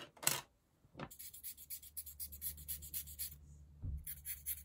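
Small face razor scraping through synthetic wig hair in quick short strokes, several a second, as it cuts the front pieces. Two sharp clicks come first, and the strokes stop briefly near the end before starting again.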